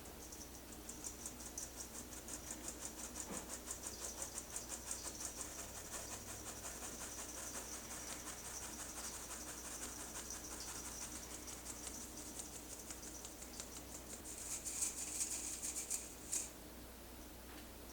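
Rapid, even scraping or clicking, several strokes a second, with a few louder scrapes near the end before it stops.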